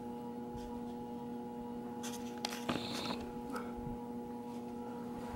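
Plastic packaging of a Lego set crinkling briefly as it is handled, a couple of seconds in, over a steady hum of several held tones.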